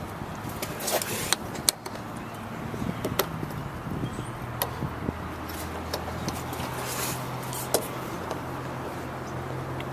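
Scattered sharp clicks and knocks of a plastic bumper cover and its bracket covers being pushed and lined up on the mounting brackets by hand, over a steady low hum.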